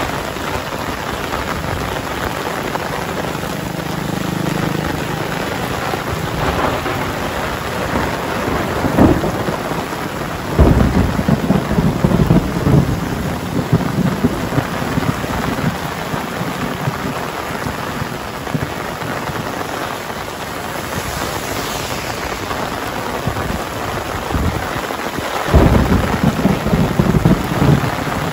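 Heavy rain falling steadily, with two loud rumbles of thunder that break in suddenly, one about a third of the way in and one near the end, each rolling on for a few seconds.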